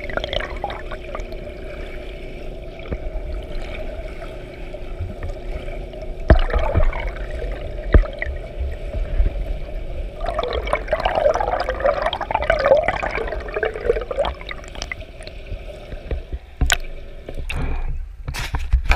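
Water splashing and sloshing from a swimmer's freestyle arm strokes and kicks, picked up at water level in a pool, with a steady hum underneath. There are two sharp knocks about six and eight seconds in, and a busier stretch of splashing a little after halfway.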